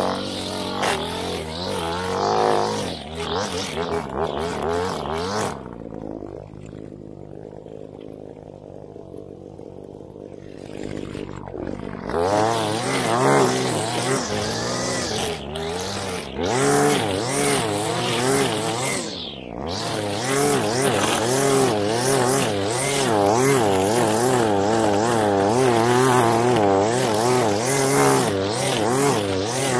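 ECHO two-stroke string trimmer running at high throttle, its engine speed wavering as the line cuts thick grass. About six seconds in it drops back to idle for roughly six seconds, then revs up again, with a brief let-off near twenty seconds.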